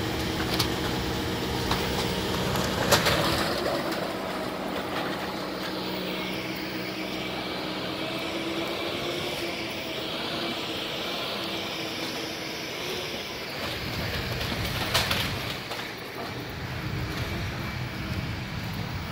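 Heavy construction machine clearing demolition debris, its engine running steadily. A few sharp knocks and clanks of debris come through, the loudest about three seconds in and another near fifteen seconds.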